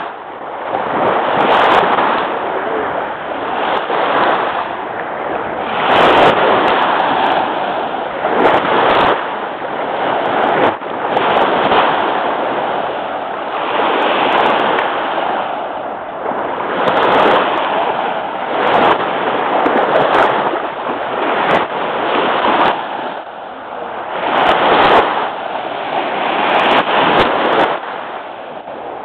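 Lake Michigan waves washing onto the beach: a loud rushing surge that swells and fades every two to three seconds.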